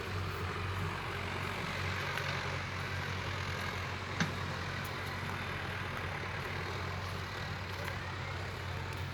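Excavator's diesel engine running steadily in a low, even hum, with one short click about four seconds in.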